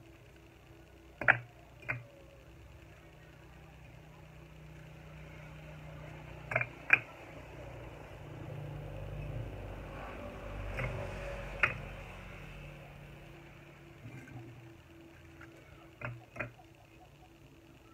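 Fired clay bricks clacking against each other as they are set down by hand on a stack: sharp knocks, often two close together, every few seconds. A low rumble swells and fades around the middle.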